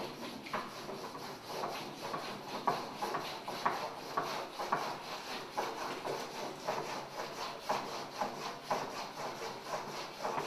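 White chalk scraping across a chalkboard in vigorous scribbling strokes, about two a second.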